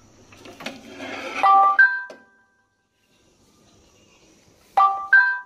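Plate and metal wire rack clattering as they are lifted out of a convection microwave oven. An electronic chime of three rising notes sounds twice, about a second and a half in and again near the end.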